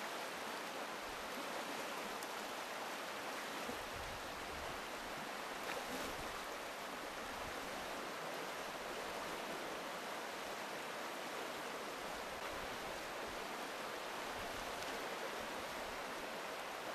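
Shallow, stony river flowing in riffles: a steady rush of running water.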